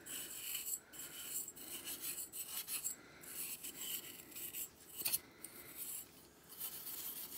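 Steel wool (wire wool) scrubbing the glossy black rim of a wind-up alarm clock case in quick back-and-forth scratchy strokes, with a couple of brief pauses. It is keying the shiny finish so paint and texture paste will grip.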